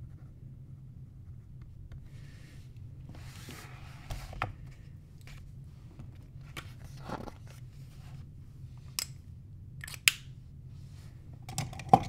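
Book and paper handling: pages rustling and being moved, with several sharp clicks and taps, the loudest about ten seconds in and another near the end. A low steady hum sits underneath.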